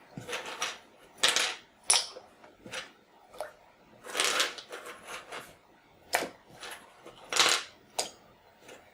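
Plastic Commodore 64 keycaps being dropped a few at a time into a tub of warm water with hydrogen peroxide and developer: irregular clicks and clatters, with three longer rattling rushes as handfuls go in.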